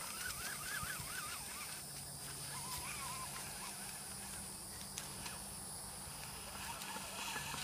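Steady high-pitched chirring of crickets or other insects. Short wavering calls rise and fall over it in the first second and a half, and again briefly about three seconds in.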